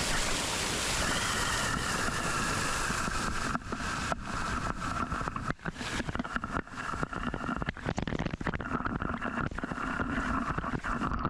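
Steady rush of a waterfall and fast creek water, with wind buffeting the microphone from about four seconds in.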